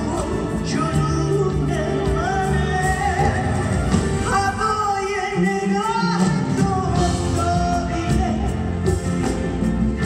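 Live Persian pop music: a singer's voice carrying the melody over a band of electric guitar, drums and keyboard, recorded from the audience on a phone in a concert hall.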